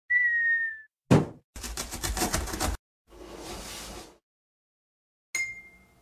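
Cartoon-style intro sound effects in sequence. First a short whistle that falls slightly in pitch, then a thump about a second in and about a second of rapid rattling. A soft whoosh follows, and near the end a bright ding rings out and fades.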